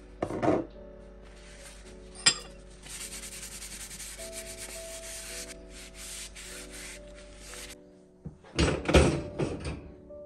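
Paper towel rubbed briskly over a metal gas-hob burner ring, wiping on flax oil to season it: a dry, scratchy rubbing that lasts several seconds over soft background music. A thump comes at the start, a sharp click about two seconds in, and near the end a louder run of knocks and clatter.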